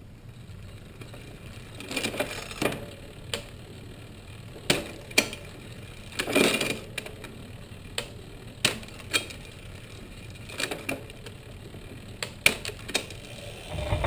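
Bicycle chain running over the chainrings as the crank is turned by hand, with irregular sharp clicks and clanks as the front derailleur shifts the chain between the small and large rings. A longer rattling scrape comes about six seconds in.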